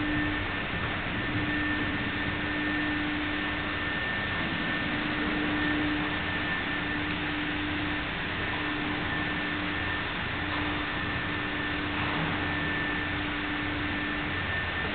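Steady hiss with a constant hum and a fainter high-pitched whine, with no distinct events: background noise of the recording.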